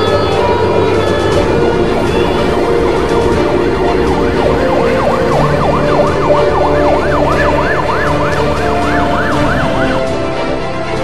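Background music with an emergency-vehicle siren over it, wailing in quick rise-and-fall sweeps from about four seconds in until near the end.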